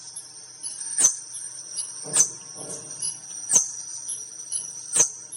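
Hummingbird calling: four sharp, high chip notes about a second apart over a thin, steady high-pitched tone.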